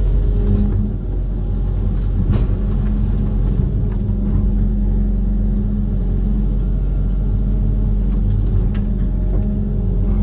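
Amphibious excavator's diesel engine running steadily, a low, even drone at constant pitch with a few faint clicks.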